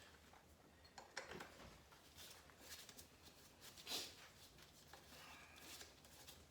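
Near silence, broken by a few faint clicks and a light knock about four seconds in, like small handling noises.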